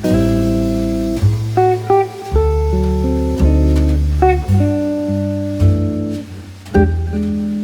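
Background instrumental music: plucked guitar notes over a steady bass line.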